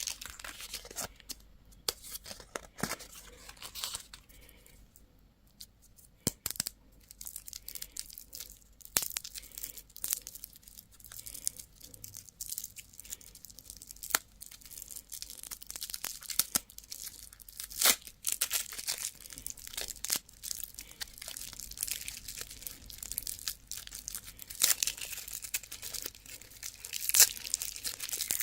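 Candy wrappers being crinkled and torn open: a dense run of sharp crackles and rips, with a quieter lull a few seconds in.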